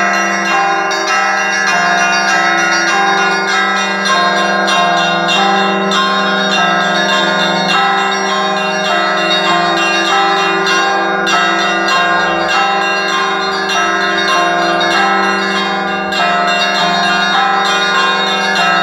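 Orthodox cathedral bells ringing continuously, many bells of different pitches struck in quick succession so their tones overlap.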